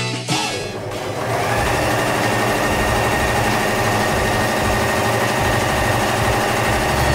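ELNA eXtend EasyCover coverstitch machine sewing, its motor coming up to speed in the first second or so and then running at a steady, even speed.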